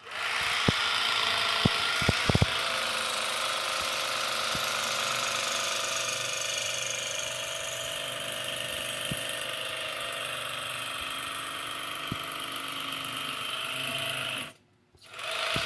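Berkley 12-volt electric fillet knife running with a steady buzz as it cuts along a trout, with a few sharp clicks in the first couple of seconds. It cuts off briefly near the end and starts again.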